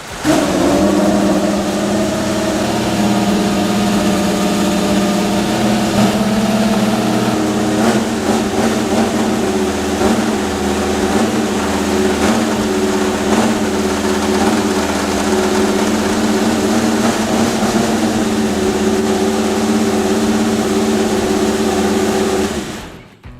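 Ferrari Formula 1 car's turbocharged 1.6-litre V6 hybrid power unit running at steady, moderate revs, holding one pitch with only small wavers.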